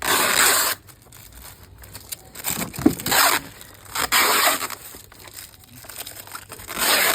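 A parcel's wrapping being torn open by hand: four loud ripping pulls, at the start, around three seconds, around four seconds and near the end, with crinkling and rustling of the wrapping in between.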